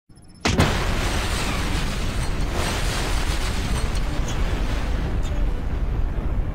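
Explosion sound effect: a sudden blast about half a second in, followed by a long, steady rumble.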